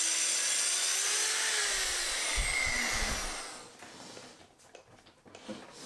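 Track saw cutting through the particleboard back of a flat file cabinet, its motor whining steadily along with the dust extractor. About three seconds in the saw winds down and stops, leaving a few faint knocks of the cabinet being handled.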